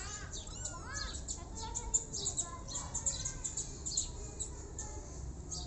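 Small birds chirping busily in many short, quick calls.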